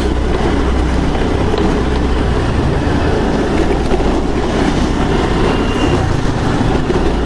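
Steady riding noise from a moving scooter: wind on the microphone and the engine's low drone, unchanging throughout.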